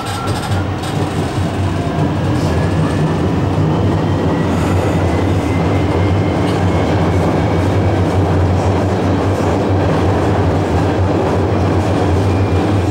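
CSR Zhuzhou A5 metro train heard from inside the car, picking up speed. The Times Electric IGBT-VVVF traction inverter whine rises in pitch over the first few seconds over a steady low rumble of wheels on rail, which grows louder and then holds.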